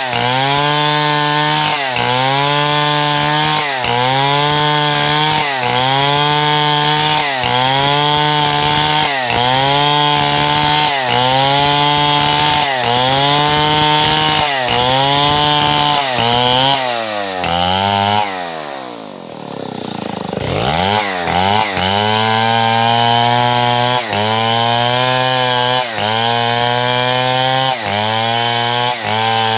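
Stihl MS070 large two-stroke chainsaw cutting wood, its engine pitch dipping and recovering about once a second as the chain bites under load. About two thirds of the way through the revs drop away to idle, then it is revved back up and cutting resumes in the same rhythm.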